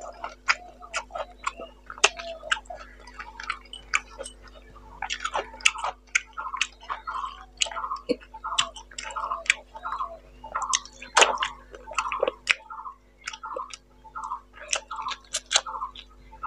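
Close-miked wet chewing and lip-smacking of a mouthful of rice and fish curry, with sharp clicks throughout and a regular chewing rhythm of about two chews a second.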